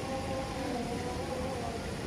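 Outdoor street noise: a steady low rumble of traffic, with faint voices in the distance.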